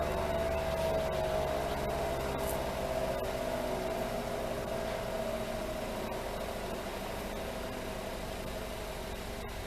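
ACA Allertor-125 outdoor warning siren winding down after its one-minute alert test, its tone sliding slowly down in pitch and fading. A low steady rumble runs underneath.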